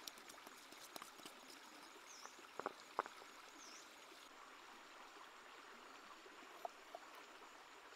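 Faint steady rushing hiss like a running stream, with scattered light clicks and taps; the two sharpest come close together about three seconds in.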